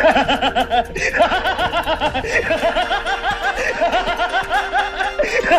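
A man laughing, a long, rhythmic run of repeated 'ha' sounds on an old film soundtrack.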